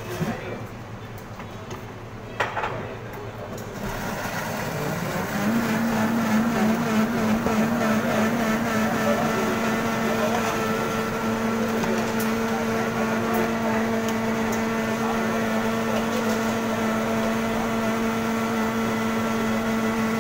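Commercial countertop blender: a couple of knocks as the jar is seated on the base, then the motor spins up about four to five seconds in and runs at a steady high-speed whine.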